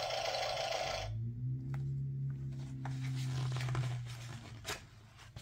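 Electronic sound book's airplane sound effect played through its small speaker: a hissing rush for about a second, then a low propeller-engine drone that rises a little and fades out about four seconds in. A few light clicks of handling follow near the end.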